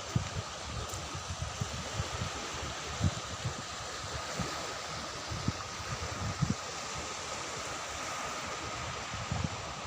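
Sea surf washing steadily on a beach, with wind buffeting the microphone in irregular low thumps.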